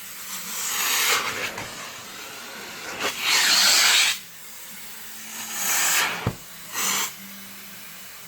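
Central vacuum hose and wand drawing air, heard as four surges of rushing hiss, the loudest about three seconds in, with a faint low steady hum between them.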